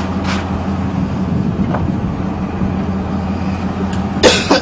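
Engine running with a steady low hum under a rushing noise, and a sharp knock near the end.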